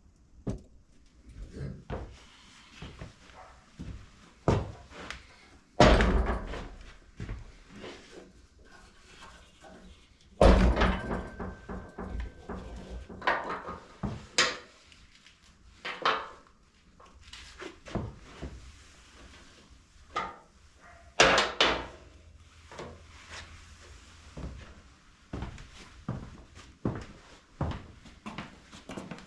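Irregular clatter and knocks of tools and parts being handled during motorcycle suspension work, with three louder bangs spread through.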